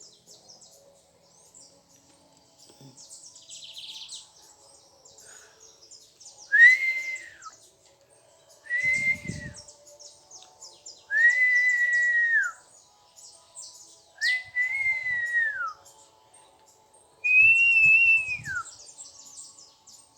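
A bird giving five clear, drawn-out whistled notes, each about a second long and dropping in pitch at the end, a few seconds apart. Faint high chirping runs underneath.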